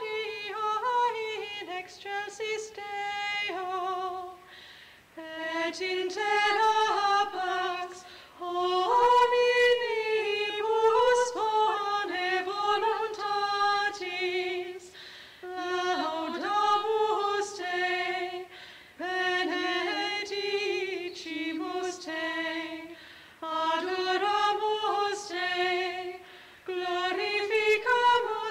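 Unaccompanied high voice singing a sung part of the Catholic Mass, in held, gently moving phrases with short breaks between them.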